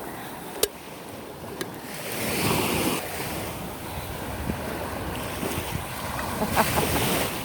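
Small waves washing onto the shore, with wind buffeting the microphone; one wave swells up about two seconds in. A couple of sharp clicks come early on.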